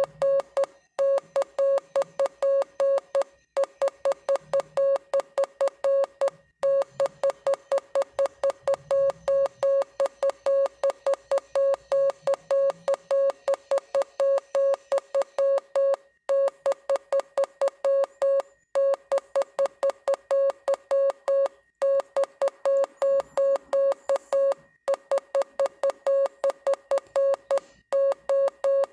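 Morse code sent as a single mid-pitched beeping tone, keyed on and off in quick dots and dashes, with short pauses every few seconds between groups.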